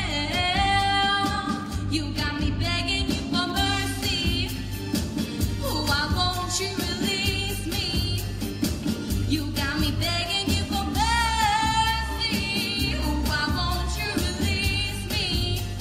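A girl singing a song into a microphone over instrumental backing with a steady bass and drum beat.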